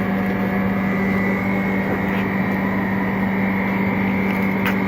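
Steady mechanical hum with a strong, even low tone from a freezer separator machine's refrigeration unit running.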